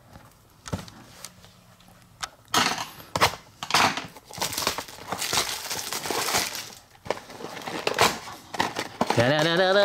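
A small cardboard blind box being opened and its plastic wrapping crinkled and crumpled, in bursts, with a few sharp clicks.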